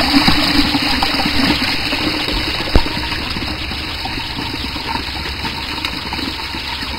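Water running steadily through a tabletop dam model, splashing over the spillway and pouring through a V-notch weir. One sharp click sounds a little before halfway through.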